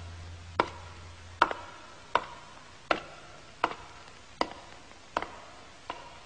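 Wooden clog (geta) footsteps at a slow, even pace, one hollow clack about every three-quarters of a second, each with a short ring.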